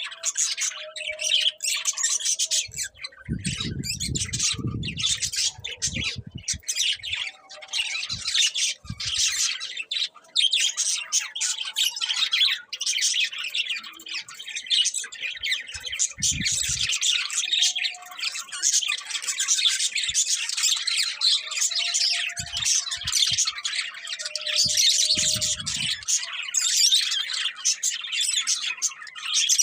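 Budgerigars chattering: a dense, continuous stream of rapid high chirps and squawks. A few low thumps come through now and then.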